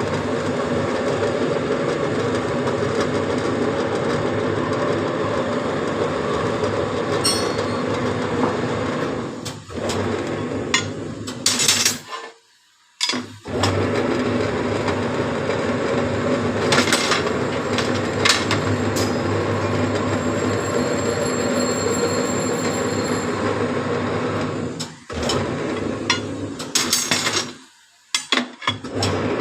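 Metalworking machine tool running steadily, a rumble with hiss and faint squeal, interrupted by a few short breaks where the recording is cut.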